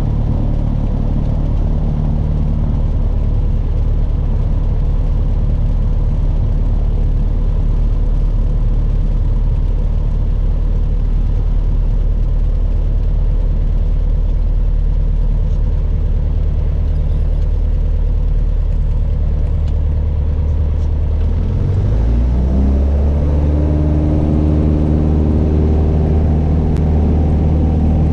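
Piper PA-28 light aircraft's piston engine and propeller droning steadily. About three-quarters of the way through, the engine note rises and then holds steady at the new pitch, a change in engine power.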